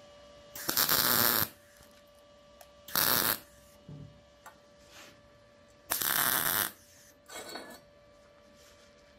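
MIG tack welds on thin-wall 1/16-inch mild steel square tubing with an Arccaptain MIG 200: three short bursts of arc crackle, each half a second to a second long, and a fainter fourth near the end, with a steady electrical hum between them.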